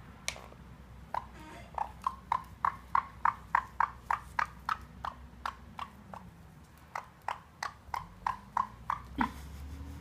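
Black-headed caique making a run of sharp, regular clicking taps, about three or four a second, swelling and then fading. After a short break come a few slower taps.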